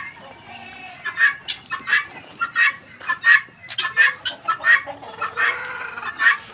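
Helmeted guinea fowl calling: a rapid run of short, sharp calls, several a second.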